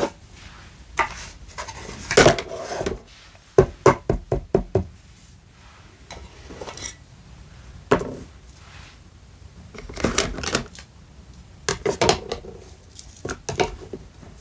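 Toy kitchen pieces being handled, giving clusters of short, sharp knocks and taps, with a quick run of about seven taps about four seconds in.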